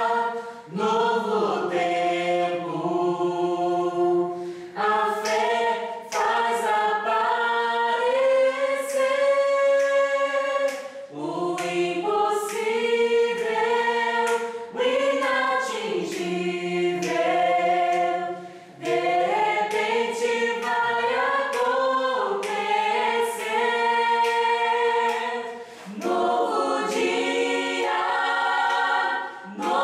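Small mixed group of men and women singing a gospel song a cappella in several-part harmony, in phrases with brief breaks between them.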